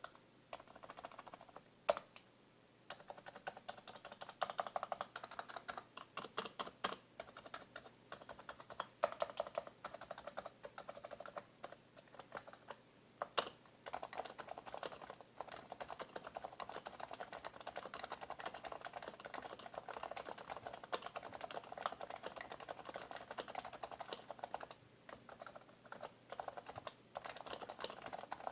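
Typing on an HHKB (Happy Hacking Keyboard) Bluetooth keyboard with Topre switches. A few separate keystrokes come first, then steady fast typing from about three seconds in, growing denser about halfway through.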